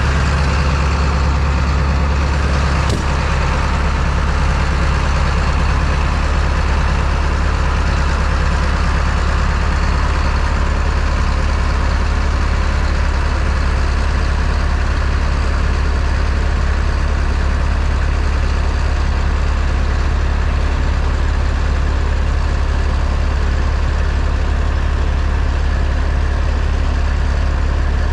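Semi-truck engine and road noise, a steady low drone with a broad rushing hiss, as heard while the truck hauls a load down the highway. There is a faint click about three seconds in.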